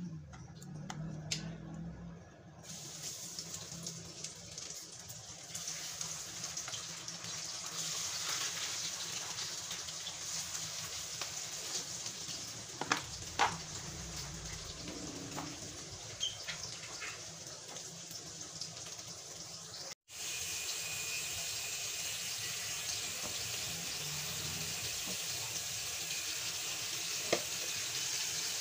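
Milkfish (bangus) fillets frying in hot oil in a frying pan: a steady sizzle that starts a couple of seconds in, with a few sharp pops of spattering oil.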